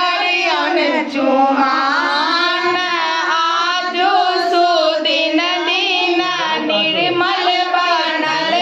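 A group of women singing a song together in unison, voices held and gliding from note to note.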